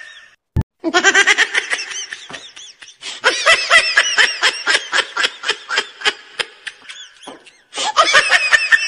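High-pitched rapid laughter, a giggling laugh track in several long bursts, with a short low thump just before the first burst.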